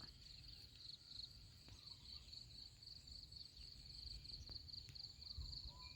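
Faint, steady, high-pitched trill of insects such as crickets, finely pulsing without a break, over a low background rumble.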